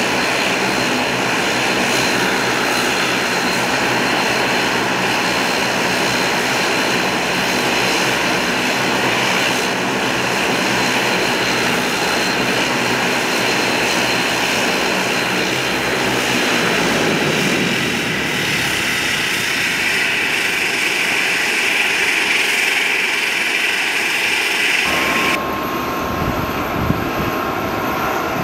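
De Havilland Canada Dash 8-200's twin Pratt & Whitney Canada PW123 turboprops running at taxi power as the airliner rolls up to the gate. About two-thirds through, the deep part of the engine sound falls away as the engines are throttled back. Near the end it changes abruptly to a fainter, thinner sound.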